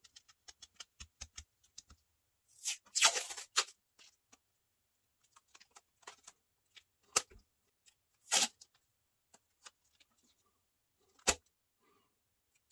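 Fingernail picking at the edge of a roll of masking tape in a run of tiny ticks, then the tape peeled and torn off in short rasping bursts, loudest about three seconds in and again near eight and a half seconds, with single sharp clicks between.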